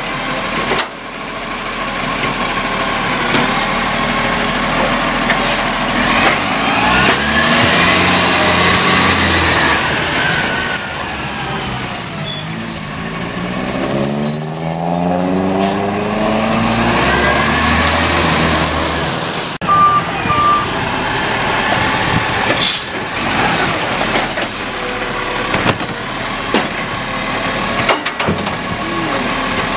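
Side-loading garbage truck's diesel engine revving as it pulls away between bin stops, its pitch rising twice, with a hiss of air brakes and a few sharp clunks from the hydraulic bin-lifting arm.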